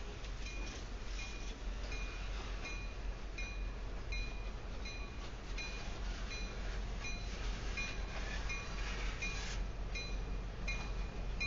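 A freight train rolls slowly past with a steady low rumble of wheels and diesel locomotives. Over it a bell rings steadily, about twice a second.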